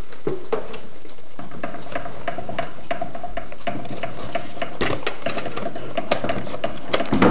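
Plastic 5x5 Rubik's Cube being handled and twisted: rapid clicking and rattling of its layers, with a fast run of clicks in the middle and scattered sharper clicks after it.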